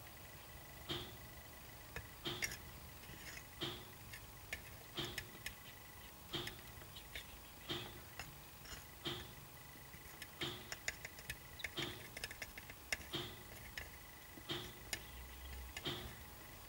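Faint, even ticking about every second and a half, with small irregular clicks in between as corncrake chicks peck at plastic feeding tweezers and a plastic dish.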